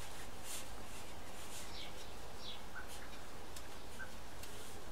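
Steady background hiss with a few faint, short high chirps scattered through it.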